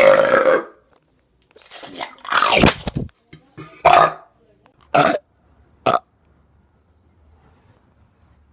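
A man belching loudly several times: a long belch at the start, a longer one about two seconds in, then shorter belches about four, five and six seconds in.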